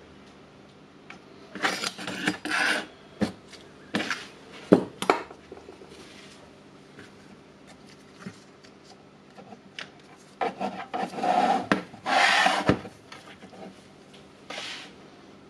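Handling noise in four spells: gloved hands rubbing and scraping on the opened plastic battery pack and its metal contact plates, with a couple of sharp knocks.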